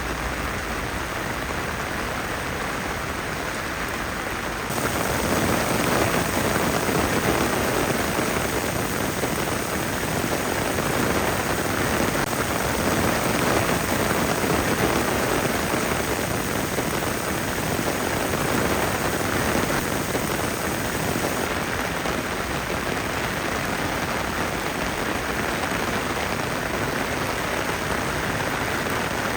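Heavy rain falling in a steady, dense hiss, louder from about five seconds in.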